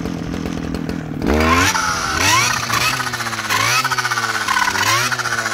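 Two-stroke clearing saw (brush cutter) idling for about a second, then revved up four times in quick succession, its pitch rising and dropping back each time as it cuts through sapling brush.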